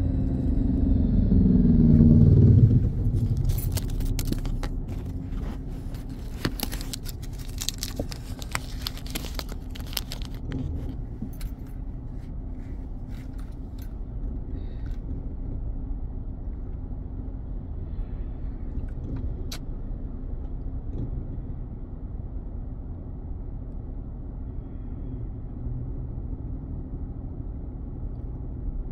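Car cabin sound as the car slows to a stop: the road and engine rumble falls in pitch over the first few seconds, then the engine idles with a steady low hum. From about 3 to 11 seconds there is a run of irregular light clicks and rattles.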